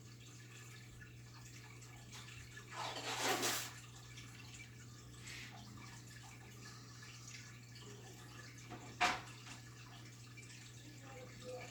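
Ranchu goldfish slurping food pellets at the water surface: a short splashy slurp about three seconds in and a sharp pop about nine seconds in, over a steady low hum.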